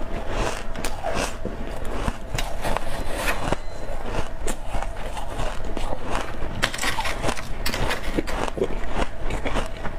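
Freezer frost being chewed close to a clip-on microphone: a dense, irregular run of crisp crunches and crackles as the ice packs and breaks between the teeth.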